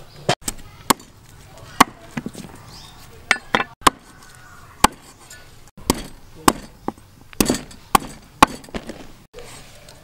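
Cleaver chopping on a wooden cutting board: sharp single knocks at an uneven pace, sometimes in quick runs of two or three.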